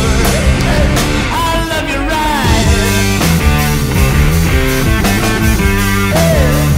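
Loud stoner rock music: a full band with drums and electric guitars, a melody line sliding up and down in pitch over a heavy low end.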